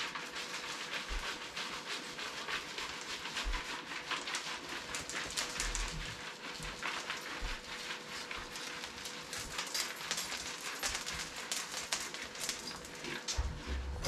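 Mixed debris (dirt, bark, wood heating pellets and Cheerios) poured from a coffee can, making a dense run of small ticks and rattles as the bits scatter onto a carpet runner and hardwood floor.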